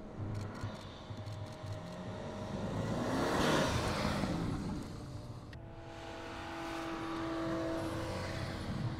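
Mercedes GLS 580's 4.0-litre biturbo V8 pulling hard through soft sand. A rush of thrown sand swells to its loudest about three and a half seconds in as the SUV passes close, then fades. After an abrupt change a little past halfway, the engine holds a steadier note.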